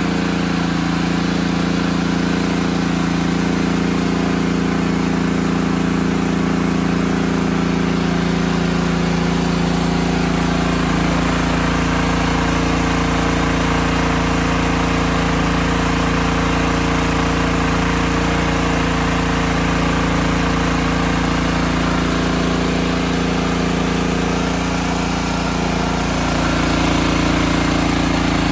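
Champion 100520 inverter generator's 420cc single-cylinder engine running steadily on propane under a heavy electrical load of about 4.4 kW, its propane/air mixture tuned to hold engine speed at the sweet spot. The level dips slightly near the end, then rises again.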